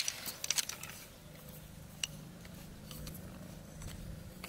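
Light clicks and taps of bamboo sticks knocking together as a bamboo trap trigger is set by hand: a quick cluster in the first second, then single clicks about two seconds in and at the end.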